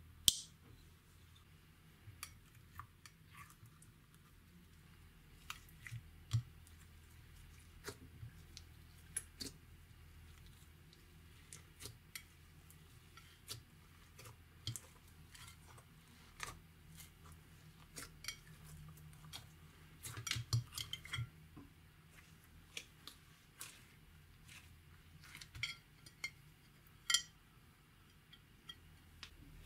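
Scattered light clicks and taps of utensils and containers while slime is handled and mixed, with a busier patch about twenty seconds in, over a faint steady low hum.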